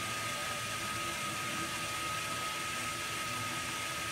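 Grundfos Alpha HWR hot water recirculation pump running, with a steady hiss of water flowing through the pipes and a thin steady high tone.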